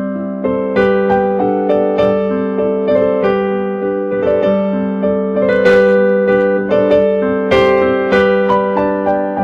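Piano music: a run of struck notes and chords ringing over a held low note, several notes a second.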